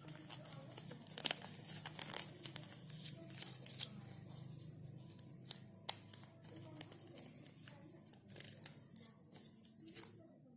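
A sheet of paper being handled, crinkling and rustling with many short, irregular crackles, over a faint steady low hum.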